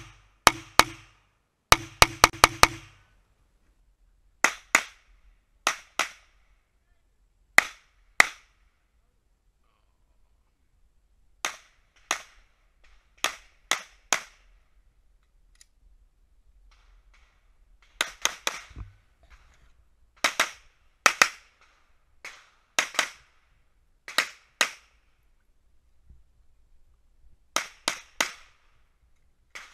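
Semi-automatic pistol fire: a fast string of shots in the first few seconds, then shots mostly in quick pairs with pauses of a second or more between them.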